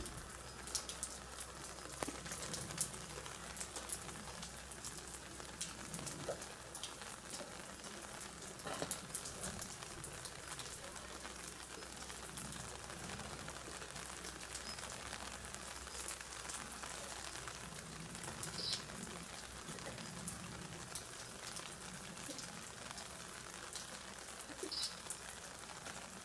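Light rain falling: a steady hiss with many separate drips ticking.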